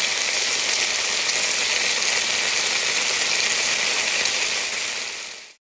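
Marinated meat sizzling on a tabletop barbecue grill plate: a steady hiss that fades out near the end.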